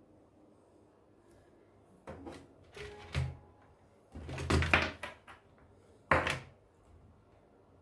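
A few separate knocks and clattering handling noises, like objects being moved or set down on a desk. The loudest and longest comes about halfway through, and a sharp knock follows about a second later.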